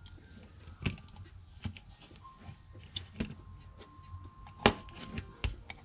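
Light clicks and taps of a small all-metal model air compressor being handled by hand on a cutting mat, about half a dozen sharp ticks spread unevenly, the loudest a little before the end.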